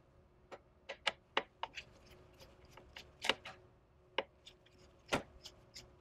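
A hand Phillips screwdriver loosening the captive screws of a Dell PowerEdge R330's CPU heatsink gives a string of faint, irregular clicks and ticks. Two louder clicks come about three and five seconds in.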